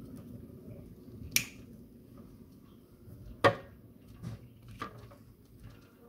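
Plastic cable ties being snipped off with pliers: two sharp snaps about two seconds apart, then a couple of fainter clicks.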